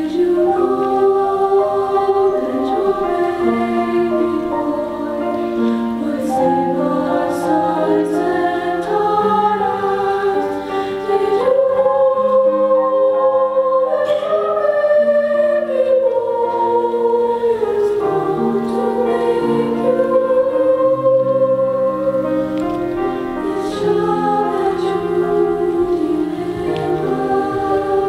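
Mixed high school chorus, male and female voices, singing in harmony with long held chords that move together.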